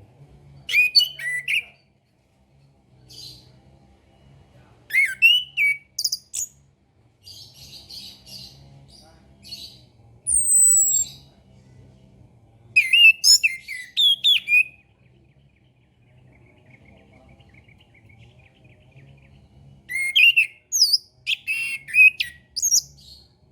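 Chestnut-capped thrush (anis kembang) singing: short phrases of quick, varied whistled notes, many sliding up or down, with pauses of a second or two between phrases and a clear falling whistle about ten seconds in. A faint low hum runs underneath.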